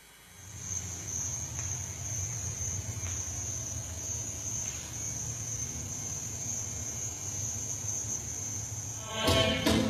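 Crickets chirping in one steady high trill over a low hum. Music with sharp percussive beats cuts in near the end.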